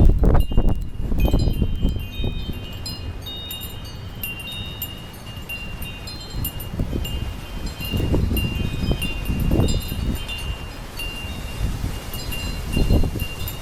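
Wind chimes ringing continuously in a windstorm, many overlapping high notes, while gusts of wind rumble on the microphone, strongest right at the start and again several times later.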